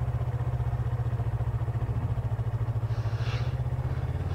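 Yamaha R3's 321cc parallel-twin engine running at low revs in first gear, near idle, with a fast even pulse and a steady pitch. The bike is pulling itself through a slow U-turn on the clutch with little or no throttle.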